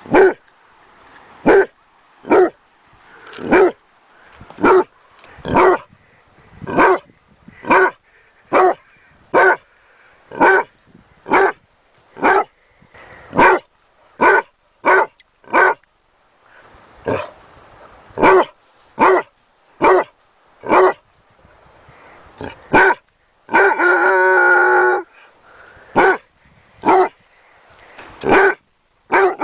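Basset hound puppy barking: short single barks about one a second, some in quick pairs. Late on comes one longer, drawn-out howl of over a second.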